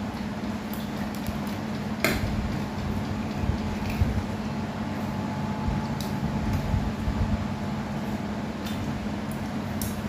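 Chopsticks and spoons clicking against ceramic plates and bowls during a meal. There are scattered sharp clinks, the loudest about two seconds in, over a steady low hum.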